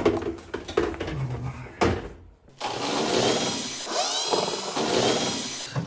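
Washing machine parts being worked apart by hand: knocks and clatter, then, after a short pause, about three seconds of grinding and scraping with squeals in it.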